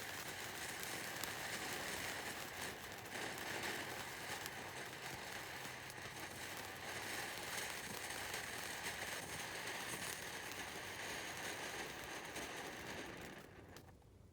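"Golden Flower" fountain firework spraying sparks: a steady hiss with fine crackling, dying away near the end.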